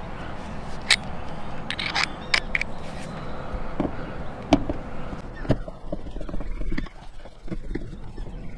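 Screwdriver tightening a bolt through a plastic cable-entry cover on an aluminum truck roof, while a wrench holds the nut underneath: scattered small clicks and scrapes of metal.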